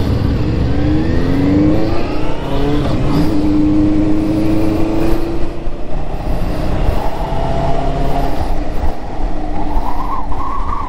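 Motorcycle engine pulling away, its pitch rising over the first few seconds and then holding steady as it cruises, with a constant low wind rumble on the microphone.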